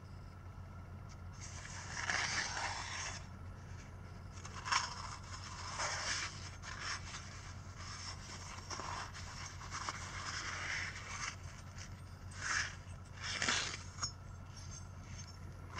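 Tissue wiping and rubbing inside a motorcycle cylinder bore in irregular scraping swishes, with a steady low hum underneath.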